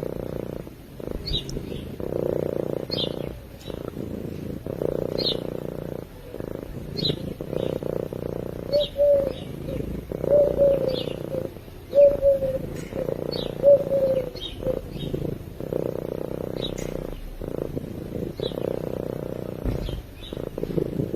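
Domestic cat purring, a low rumble that breaks briefly every second or two as it breathes in and out. Short high chirps repeat about once a second over the purr.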